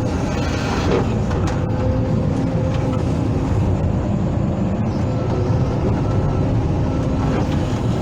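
Hydraulic excavator's diesel engine running steadily under load while it digs, with a constant low drone and a few faint clicks.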